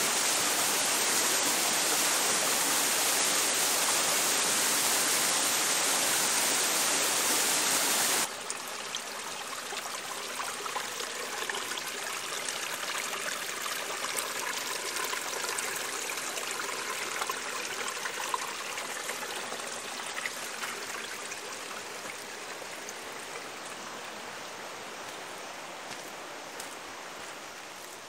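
A rainforest stream running over rocks, a steady rush of water. About eight seconds in it drops suddenly to a quieter, softer flow that slowly fades.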